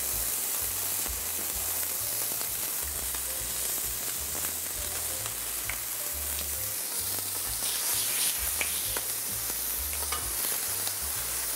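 Beef patty, bacon and buns sizzling on a flat-top griddle: a steady frying hiss with a few faint clicks and pops.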